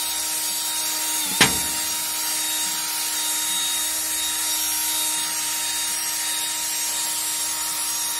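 Cordless drill running with a nylon scrubber brush on its chuck: a steady motor whine over a rushing, rubbing hiss. A sharp knock comes about one and a half seconds in, and the motor pitch dips for a moment with it.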